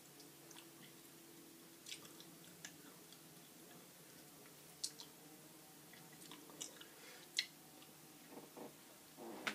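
Faint, irregular wet clicks of chewing a dry mouthful of ground cinnamon and tea-bag leaves, over a low steady hum.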